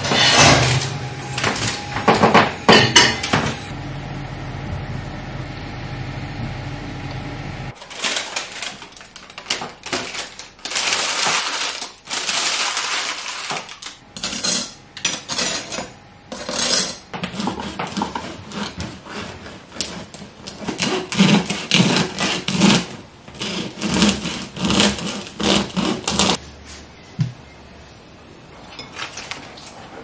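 Kitchen handling sounds: cookware clattering at the start over a steady hum. Then comes repeated crackly rustling and sawing as a crusty home-baked loaf on parchment paper is cut with a bread knife, in a run of regular strokes near the end.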